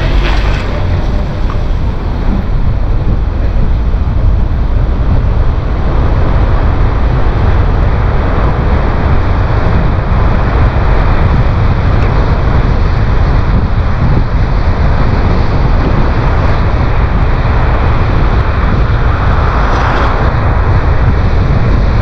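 Steady, deep wind and road noise from a car driving along a paved road, with no distinct engine note.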